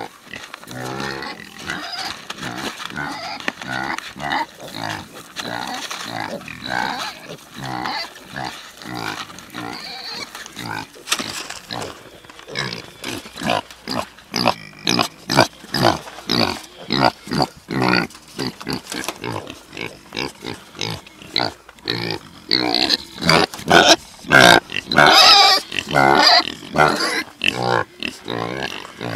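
Kune Kune pigs and piglets grunting, a dense run of short calls one after another that grows louder and quicker in the second half.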